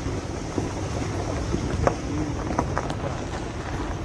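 Steady low rumble of wind buffeting the microphone, with a few faint, brief voices in the background.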